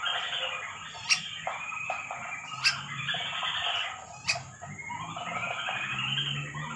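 Birds calling and chirping together in a busy, overlapping chatter, with three sharp clicks evenly spaced about a second and a half apart.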